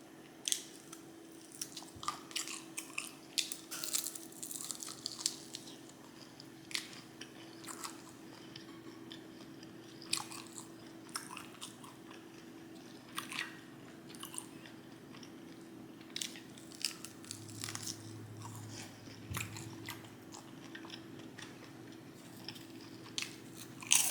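Close-miked chewing and biting of food, with irregular sharp crunches and wet mouth clicks.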